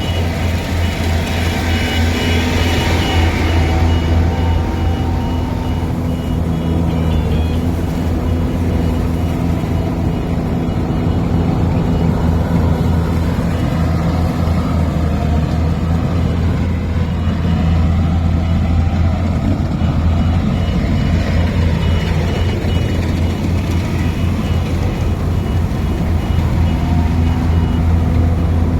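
A farm machine's diesel engine running steadily at an even speed.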